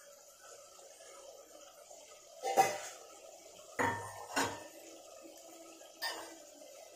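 Perforated steel ladle clinking against the pressure cooker pot while stirring vegetables, four separate knocks over a few seconds, the first the loudest.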